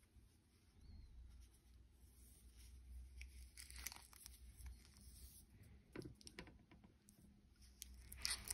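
Near silence with faint rustling and small clicks of cotton-gloved hands handling a wristwatch and flexing its rubber strap, including a crinkle of plastic wrapping; the loudest rustle comes near the end.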